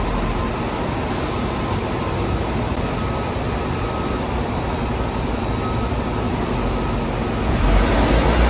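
Articulated city bus driving slowly past in a covered bus interchange, its engine rumbling steadily and growing louder near the end as it comes alongside.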